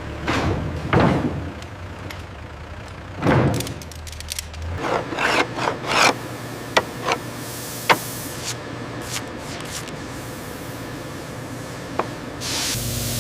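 Wood rubbing and scraping, with several sharp knocks, over a low factory machine hum that stops about five seconds in.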